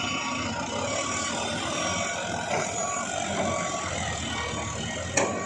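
Heavy vehicle engine running steadily, with a reversing alarm beeping at an even rhythm and a single sharp knock near the end.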